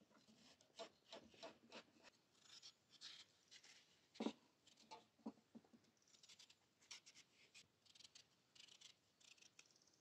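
Small knife cutting through watermelon rind, a run of crisp crunchy scrapes, with one louder knock on the metal tray about four seconds in, then lighter crunching as the rind is worked by hand.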